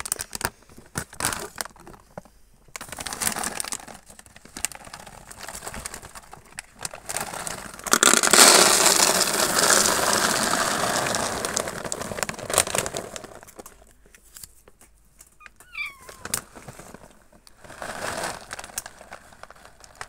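Plastic pet-food bag crinkling as it is handled, then dry cat kibble pouring out of the bag into a plastic storage bin for about five seconds, starting about eight seconds in. A short cat meow comes around fifteen seconds in, followed by more crinkling of the bag.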